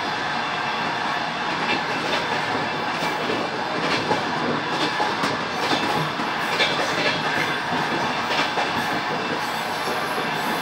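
Passenger train running, heard from inside the carriage: a steady rumble with the wheels clattering over rail joints, a run of irregular clicks through the middle.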